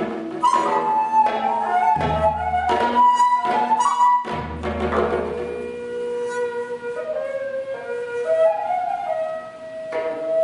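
Daegeum, the Korean bamboo transverse flute, playing a melody that slides between notes, over three deep struck strokes about two seconds apart in the first few seconds. In the second half the flute holds long, steady notes over quieter plucked accompaniment.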